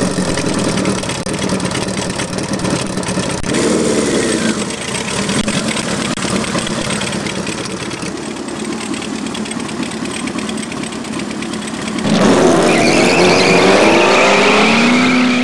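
Kawasaki KZ1000 air-cooled inline-four motorcycle engine running as the bike rides away, with the revs rising about four seconds in. About twelve seconds in it gets louder and revs up again, then holds a steady high note.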